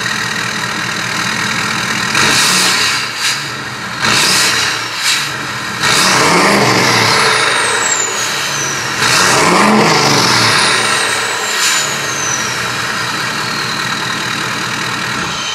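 Ford Super Duty pickup's 6.7 Power Stroke turbo-diesel V8 on its stock exhaust, with the new exhaust tip not yet fitted, idling and revved repeatedly: a few short blips in the first five seconds, then two longer revs about six and nine seconds in. Each long rev is followed by a whistle that falls in pitch as the revs drop.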